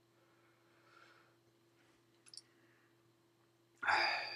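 A man's hiccup near the end: a sudden throat sound that dies away over about half a second, after two faint clicks a little past two seconds in.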